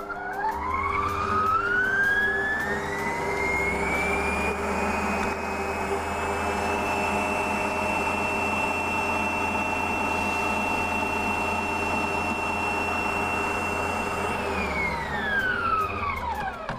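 Electric stand mixer whisking eggs and sugar: the motor's whine rises as it speeds up over the first few seconds, runs steady, then falls away as it is switched off near the end.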